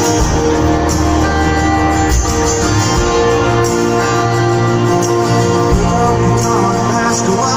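Live rock band playing amplified electric guitars, bass and drums over a concert PA, recorded from the audience.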